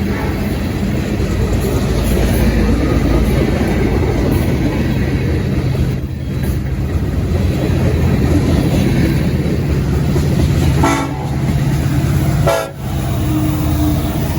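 Montana Rail Link diesel locomotives running with a steady, loud engine rumble. Near the end come two short horn toots about a second and a half apart.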